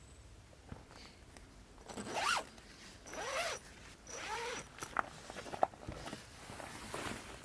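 A zipper pulled in three strokes of about half a second each, followed by a few light clicks.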